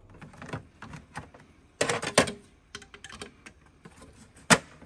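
Plastic clicks and knocks of refillable ink cartridges being handled and pushed into a Ricoh printer's cartridge bay. There is a loud cluster of knocks about two seconds in and a single sharp click near the end.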